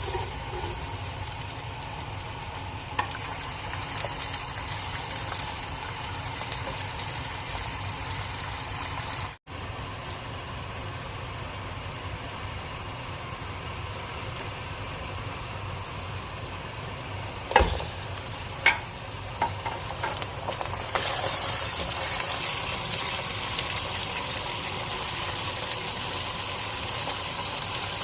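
Food frying and sizzling in hot oil in a cooking pot, a steady hiss, with two sharp knocks a little past halfway.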